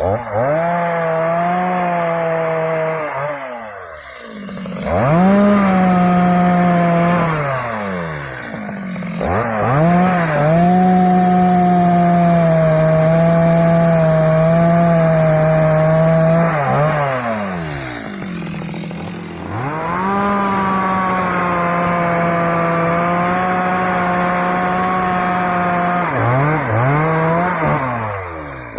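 Stihl MS 250 two-stroke chainsaw cutting acacia wood at full throttle, its revs dropping off and picking back up several times between cuts.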